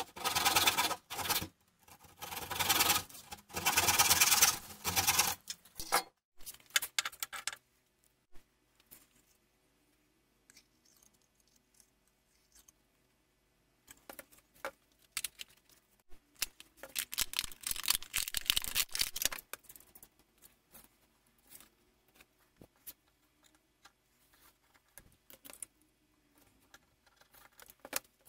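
A hand saw rasping back and forth through a small white block in a series of strokes over the first seven seconds or so. After a quiet stretch, a second spell of scratchy rubbing noise comes about 17 to 19 seconds in.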